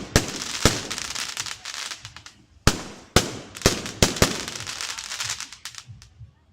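Fireworks going off: a series of sharp bangs with crackling between them, the bangs coming close together in the middle, then dying away near the end.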